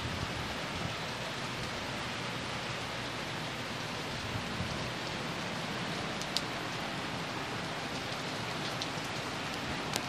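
Steady rain falling, an even hiss. A single sharp click about six seconds in.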